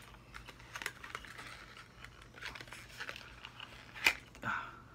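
Small box and packaging rustling and crinkling as it is handled while a yo-yo is worked out of it, with a sharp click about four seconds in.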